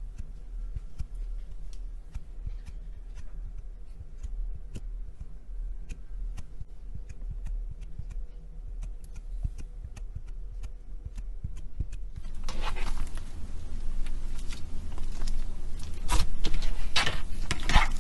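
Slime being handled: small scattered clicks and pops, then louder, denser crackling and squishing from about two-thirds of the way in.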